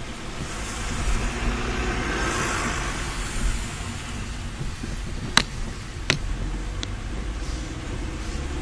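Car cabin sound while driving on a wet road in rain: steady low engine and road rumble under the hiss of tyres on wet asphalt. A louder wash of hiss swells and fades in the first few seconds. Two sharp ticks come about five and six seconds in.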